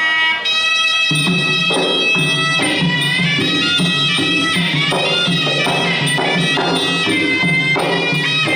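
Traditional Kun Khmer ring music: a sralai reed pipe playing a continuous, wavering melody. Drums and small cymbals join with a steady beat about a second in.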